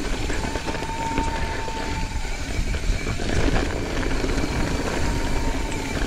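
YT Izzo trail bike ridden over a dirt singletrack: a continuous rumble of wind and tyres, with frequent small knocks and rattles from the bike over bumps.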